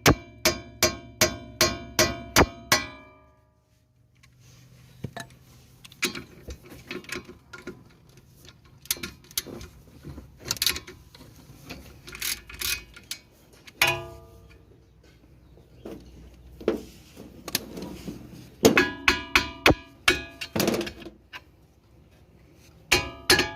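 Hammer blows on steel suspension parts, each strike ringing: a quick run of blows at the start, scattered knocks and tool clatter in between, and further runs of ringing blows around the middle and near the end. The blows are knocking the suspension arm and steering tie-rod joints loose from the front wheel knuckle.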